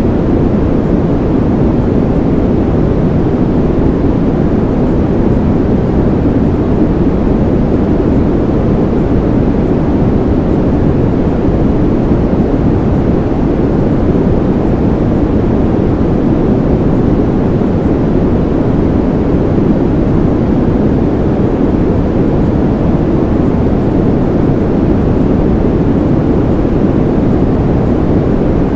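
Loud, steady low rumble of even noise, with no tone, rhythm or change in it.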